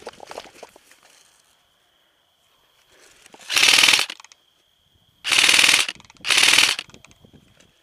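Airsoft rifle firing three short full-auto bursts of rapid clicking shots, the first about three and a half seconds in and the last two close together near the end, laying down cover fire.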